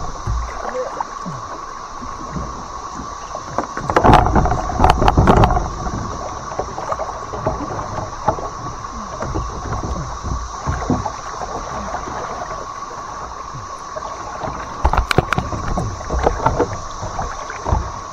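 Small boat being paddled through shallow, rocky river water: two clusters of paddle splashes and knocks, about four seconds in and again about fifteen seconds in, over a steady hum.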